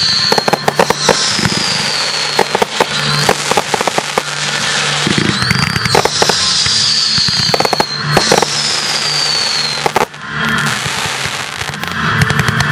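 Fireworks display: a dense run of bangs and crackling from bursting aerial shells and cakes. Several high whistles fall in pitch over about a second each, one every second or two.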